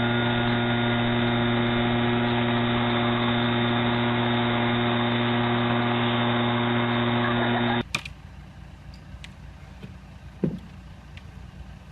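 A steady buzzing hum at one constant pitch, which cuts off suddenly about eight seconds in, leaving only faint low background sounds.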